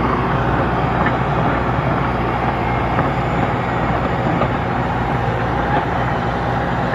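Engine of an old heavy-equipment machine running steadily with a constant low drone.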